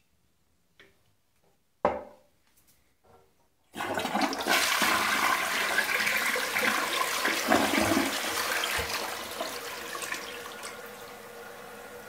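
Flush of a toilet with a 1.6-gallon-per-flush Peerless Pottery tank on an elongated bowl. A knock and a few light clicks come first, then about four seconds in the flush starts with a loud rush of water that eases off after about nine seconds to a quieter steady run of water.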